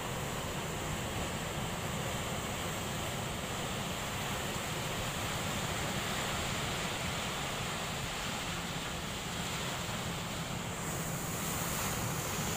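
Rough surf breaking and washing over the boulders of a rock breakwater, a steady rushing noise, with wind rumbling on the microphone. Near the end a wave breaks close in on the rocks and the hiss grows brighter.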